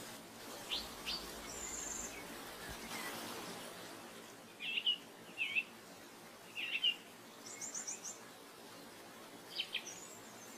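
Small birds chirping in short separate calls a second or two apart, with a quick high trill about seven and a half seconds in, over a faint steady hiss.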